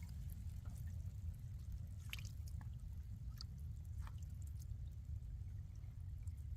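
A few small water drips and splashes, scattered over several seconds, over a steady low rumble.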